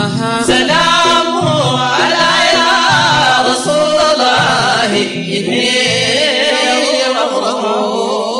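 A group of men singing a Sudanese madeeh, a Sufi praise song for the Prophet, in chorus, with a regular low beat under the voices.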